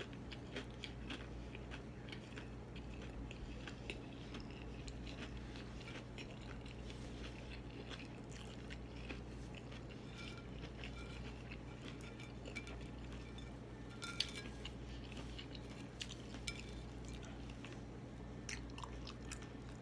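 A person chewing and crunching fried deviled eggs close to the microphone: many small, irregular mouth clicks and crunches, with a sharper tick or clink about 14 seconds in. A steady low electrical hum runs underneath.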